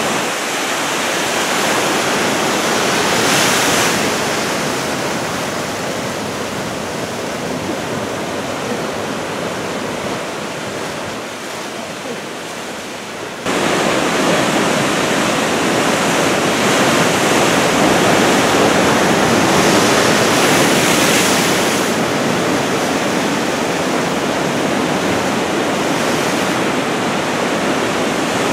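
Big typhoon-swell surf breaking and washing ashore, a continuous rushing noise of heavy waves. It steps up abruptly and stays louder about halfway through.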